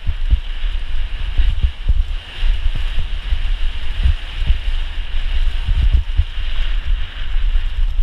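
Wind buffeting the microphone as a downhill mountain bike rolls fast down a rough dirt trail, with tyre noise and frequent knocks and rattles as the bike bounces over bumps and stones.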